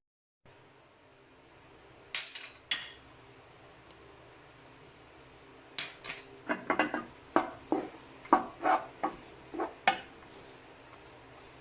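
Utensils clinking and knocking against dishes or cookware: two sharp clinks, then a quick run of about ten knocks and clinks.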